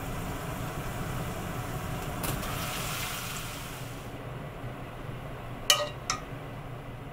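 Steady low hum, with a short hiss about two seconds in, then two sharp clinks with a short ring about half a second apart.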